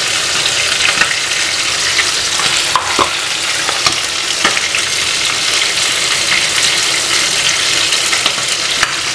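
Steady sizzle of onions frying in hot oil in a pot, with a few light clicks as a spatula taps the pot.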